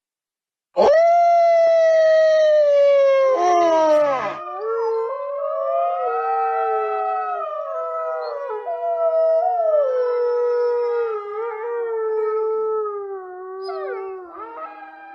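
Wolf howling: after a short silence a loud, long howl rises quickly and holds. About four seconds in it breaks into a short rasp. Then long wavering howls follow, with overlapping voices gliding up and down in pitch.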